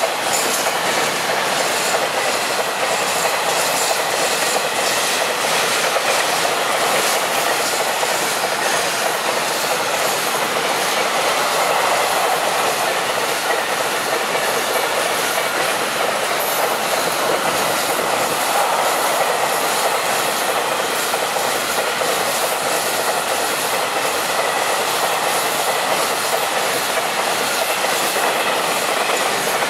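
Open-top freight wagons of a long freight train rolling past close by: a steady, loud rumble and rush of steel wheels on rails, with the clack of wheels over rail joints.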